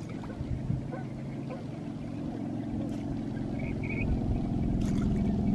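Boat engine running with a steady low drone that grows louder over the last second or two as it comes closer.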